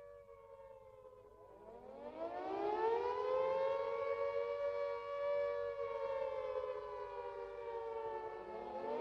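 Air-raid warning siren wailing: its pitch climbs over a couple of seconds, holds, sinks, and starts climbing again near the end.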